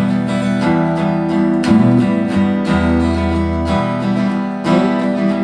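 A band plays an instrumental passage between sung verses: acoustic guitar strumming chords in a steady rhythm over held low notes.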